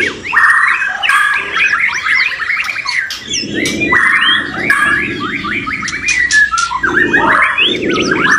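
Several white-rumped shamas (murai batu) singing over one another: a dense, continuous stream of rapid varied whistles, chirps and sliding notes, with rougher lower notes joining about three seconds in and again near the end.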